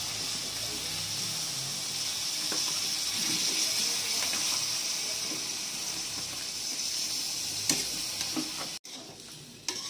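Vegetables frying in oil in a steel kadai with a steady sizzle as boiled bean seeds are spooned in with a metal spatula, with a few sharp clicks of the spatula. The sizzle drops off abruptly near the end.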